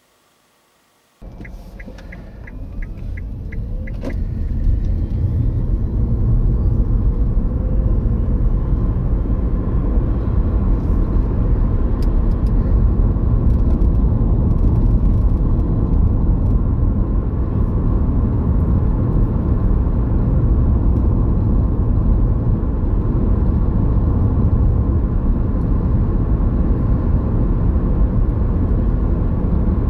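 Car driving on the road, heard from inside the cabin: a low engine and tyre rumble that starts about a second in, builds over the next few seconds, then holds steady. A quick run of light ticks comes about two to four seconds in.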